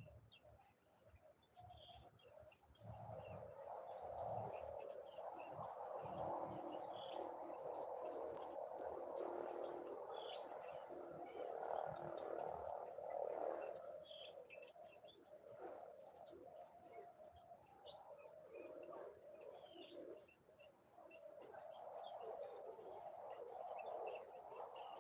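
Forest ambience: a steady, high, pulsing insect trill over a rougher, lower chorus that swells about three seconds in, eases off and builds again near the end, with scattered short bird chirps.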